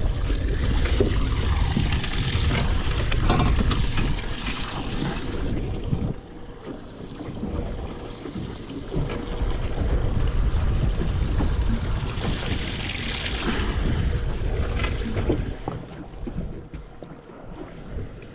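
Wind buffeting the microphone over splashing water, a heavy low rumble with a hiss that swells twice and eases near the end.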